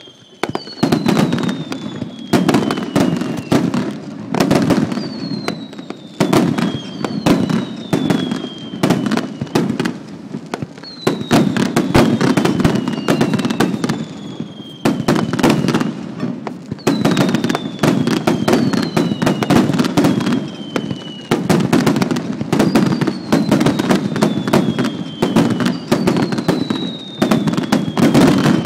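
Fireworks display: dense volleys of bangs and crackling with a heavy rumble, starting about a second in. About every two to three seconds a whistling tone sounds and falls in pitch.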